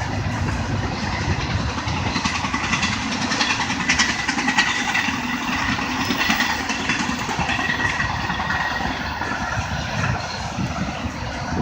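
Intermodal freight train's container cars rolling steadily past, wheels clicking over the rail joints, with a faint high squeal from the wheels.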